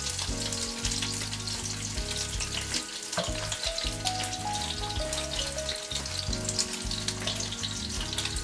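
Thick-cut smoked bacon sizzling and crackling in a hot pan as it browns, a continuous dense crackle of popping fat.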